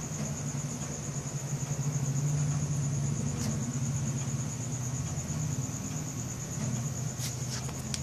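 Crickets trilling in one steady, high, pulsing note over the low hum of an engine running. The engine hum swells a little about two seconds in, and a few faint clicks come near the end.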